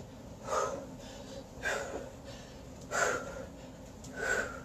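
A woman's sharp, breathy exhales, four of them about a second and a quarter apart, one with each bodyweight squat as she rises.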